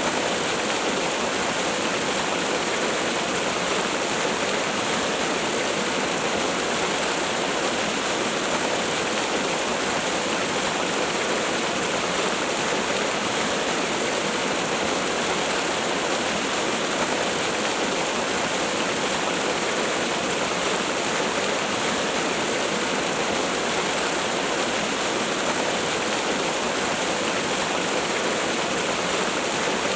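Waterfall: a steady, unbroken rush of falling water, bright and hissy with little deep rumble.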